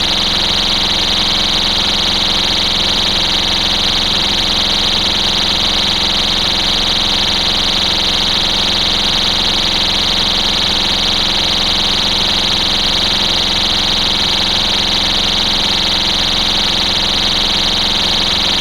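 STI Stopper pull-station cover's built-in piezo horn sounding its tamper alarm: a loud, steady, high-pitched tone that does not change.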